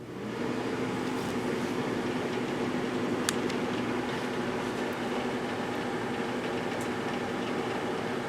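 GE Dual Wave microwave oven switching on and running with a steady hum, with a few faint ticks over it.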